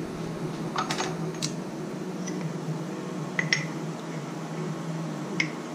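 Sharp metal clinks of steel parts being handled: a thread-milled hardened steel pin taken out of a four-jaw chuck and a nut started onto its threads, with a cluster of clinks about a second in, two close together halfway through and one more near the end. A steady low hum runs underneath.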